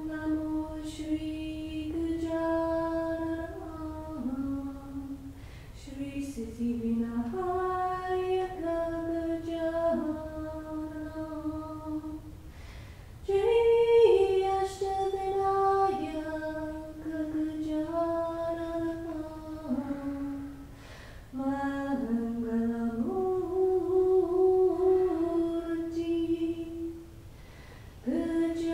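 A woman's voice singing a slow, unaccompanied chant, holding long notes that step up and down, in phrases broken by short pauses for breath.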